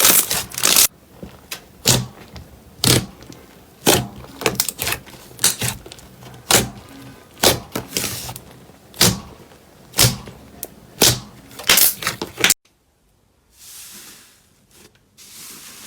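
Slime being pressed and squeezed, making sharp popping clicks about once a second. Near the end it cuts abruptly to a much quieter, soft squishing rustle.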